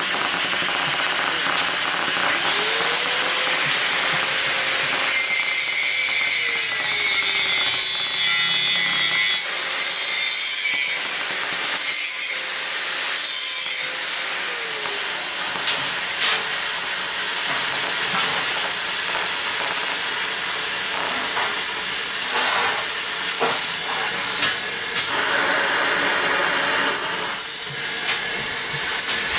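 LPG-oxygen cutting torch hissing steadily as it cuts through an iron pipe. The hiss changes in tone a few times as the cut goes on.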